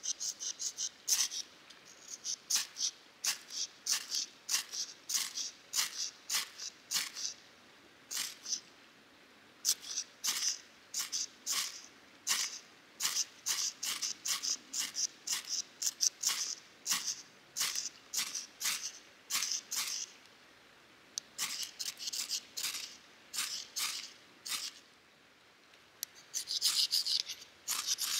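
Ferrocerium fire-starter rod being struck with a steel striker: a long series of short, high-pitched rasping scrapes, about one to two a second, with a few short pauses and a quick flurry near the end. These are repeated attempts to light wood feather-stick shavings directly with sparks.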